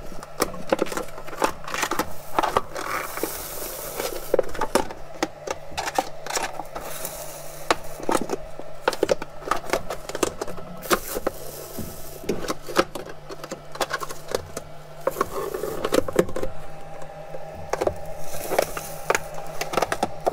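Adhesive build-plate sticker being peeled off a heated glass 3D-printer bed: irregular crackling and sticky tearing with scrapes and light knocks of the sheet, over a steady low hum.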